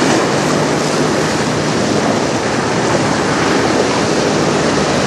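Choppy river water splashing and washing against a rocky shoreline, with wind buffeting the microphone. A faint steady low hum sits underneath.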